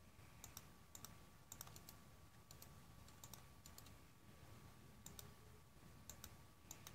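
Faint, irregular clicking of a computer mouse, many clicks in quick pairs, over a faint steady high hum.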